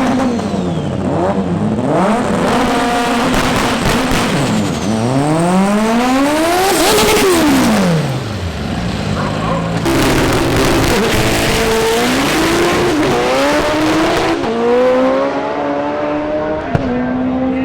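Front-wheel-drive drag cars accelerating hard, engine pitch climbing and dropping back at each gear change, in several short cuts. One car's engine rises steadily to a high pitch and then falls away quickly about seven seconds in.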